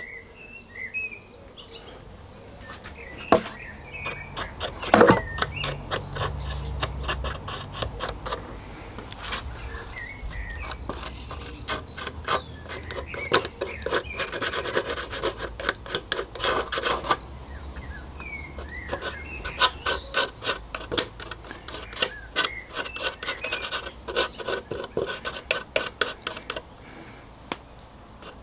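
Wood being sanded by hand on balsa model-aircraft parts: bursts of quick rubbing strokes, with two louder knocks about three and five seconds in.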